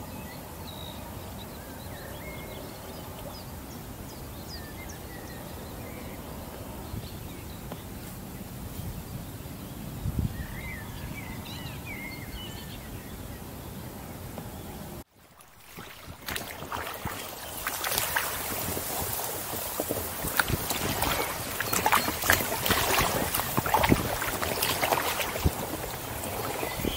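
Inflatable kayak on the water: first a steady low wash of wind and water with a few faint bird chirps, then, after a sudden break about halfway, louder lapping, sloshing and knocking of water against the hull as the kayak moves.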